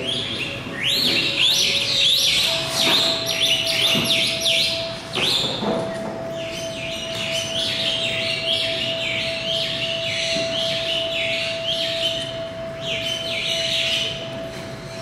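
Many small birds chirping in a continuous overlapping chorus of quick falling chirps, easing off near the end, over a steady thin hum.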